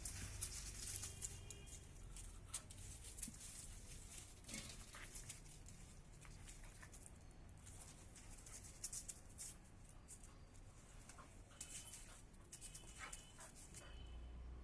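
Dogs play-fighting: faint scuffling and rustling, with a few short high-pitched whines about a second in and again near the end.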